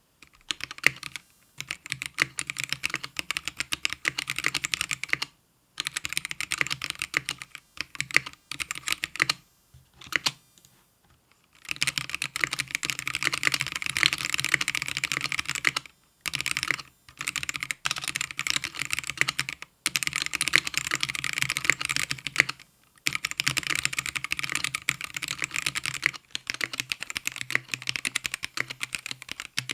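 Typing on a GamaKay K77 mechanical keyboard with stock Gateron Black linear switches: fast, dense runs of keystrokes broken by several short pauses.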